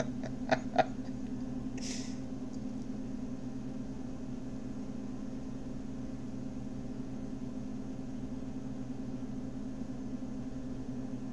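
Steady low hum of background room and microphone noise, with a few small clicks in the first second and a short breathy hiss about two seconds in.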